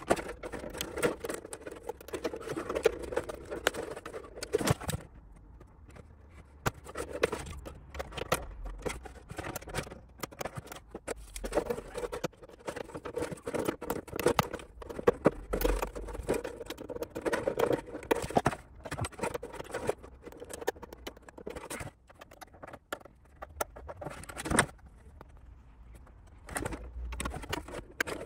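Clear Lexan (polycarbonate) RC car body being cut out by hand: many short clicks and snips in irregular clusters as the tool works through the plastic, with brief pauses between runs.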